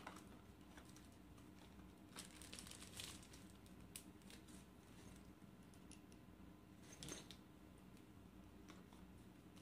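Near silence with a few faint rustles and light clicks from small plastic parts and packaging being handled.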